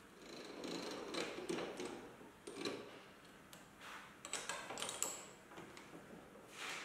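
Scattered light metallic clicks and knocks of hands handling a workpiece in a lathe chuck, with a quick run of clicks about four seconds in.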